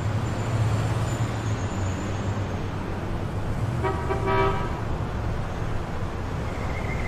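Steady low rumble with a brief horn-like tone about four seconds in.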